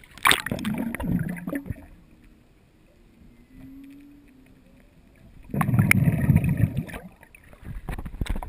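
Water splashing and sloshing over an action camera as it goes under the surface and comes back up: a sharp splash about a quarter second in, muffled quiet while it is underwater, then loud deep churning of water from about five and a half to seven seconds in, and a few smaller splashes near the end.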